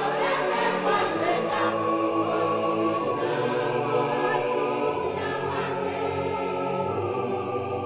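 A choir singing long, held notes, as choral music at a steady level.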